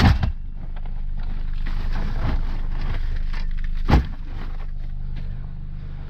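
Car engine idling steadily, with two sharp knocks: one at the start and one about four seconds in.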